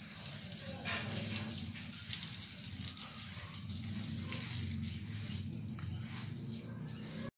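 Steady hiss of running, splashing water, with scattered small ticks of drops. It cuts off abruptly near the end.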